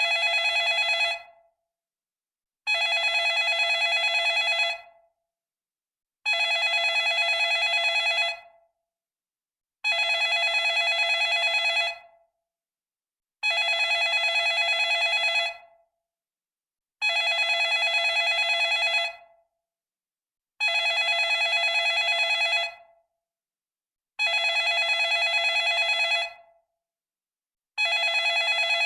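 Retro telephone bell ringing with a fast trill. Each ring lasts about two seconds and dies away quickly, and the rings repeat about every three and a half seconds with short silences between them.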